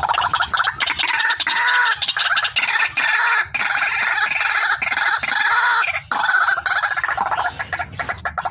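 A white-breasted waterhen (ruak-ruak), the female's call, gives a loud, fast run of harsh repeated notes. The calls are near-continuous, with a brief break about six seconds in.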